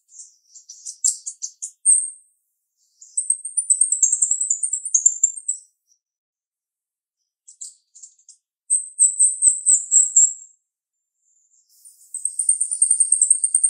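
Female jalak rio-rio singing: sharp, very high-pitched phrases of rapid chattering notes, each lasting one to two seconds, with short pauses between them.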